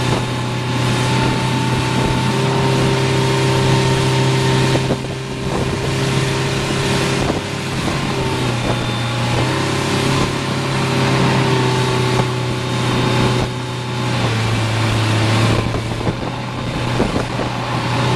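Motorboat engine running at speed while towing an inflatable tube, over the rush of the churning wake and wind on the microphone. The engine note drops slightly twice, about halfway through and again near the end.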